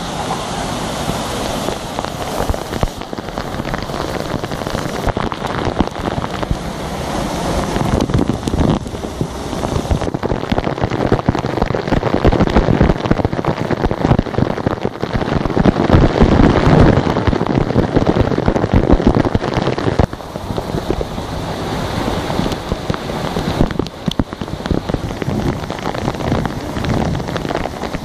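Waterfall pouring down close by, its spray hitting the microphone directly with a dense crackling patter. It gets louder through the middle as the camera goes under the falling water, then eases off.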